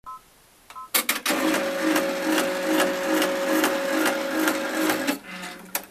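Brother PR1000e embroidery machine giving two short beeps, then stitching for about four seconds with a rhythmic beat of about three strokes a second and a steady squeak from its shaft, then stopping with a few clicks.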